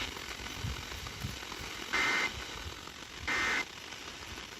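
Emergency Alert System digital data bursts: short, harsh two-tone warbling blasts about a second apart, two in full with a third starting right at the end. Bursts this short are typical of the end-of-message code closing an alert.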